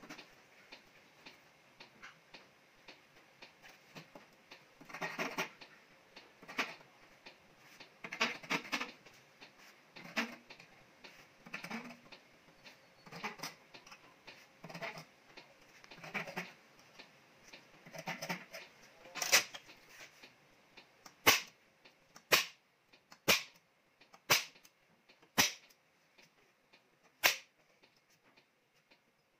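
Hardened steel scribe scratching along steel angle iron in short strokes while it is marked out. From about two-thirds of the way in, a series of sharp metallic snaps comes roughly a second apart, from a spring-loaded automatic centre punch marking the steel.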